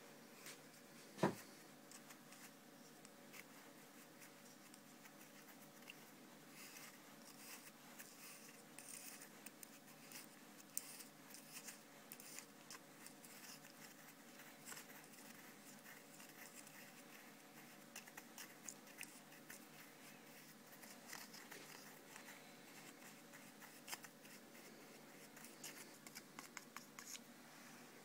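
Faint scraping and light clicking of a screwdriver stirring abrasive valve-lapping paste, being thinned with diesel, in a small glass jar, with one sharper click about a second in.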